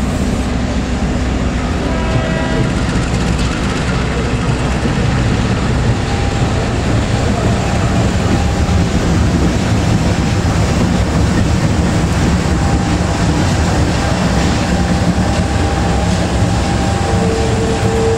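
Diesel-electric locomotive engine running steadily as it moves a rake of passenger coaches during shunting, with wheels clacking over the rails. A horn-like steady tone comes in near the end.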